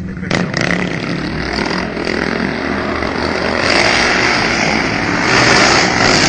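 Modified 660 Kawasaki quad bike's engine running hard, a continuous drone that grows louder from about halfway through and is loudest near the end as the quad drifts across the pavement.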